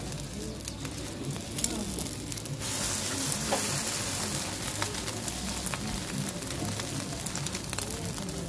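Egg omelette frying in oil on a hot flat iron griddle, sizzling steadily. The sizzle gets louder about three seconds in, as the omelette is turned over onto its uncooked side.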